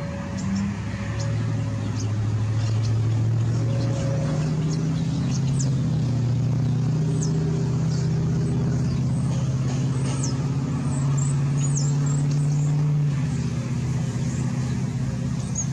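A motor vehicle's engine running steadily, its low hum shifting in pitch a few times, with many short high chirps above it.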